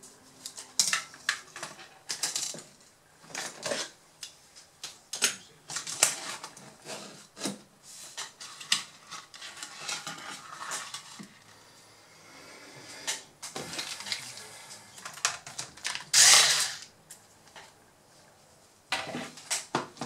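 Irregular clicks, taps and clatter of laptop parts being handled on a workbench: the plastic and metal bottom cover panel and small parts knocked and set down. One louder noise lasting under a second stands out about sixteen seconds in.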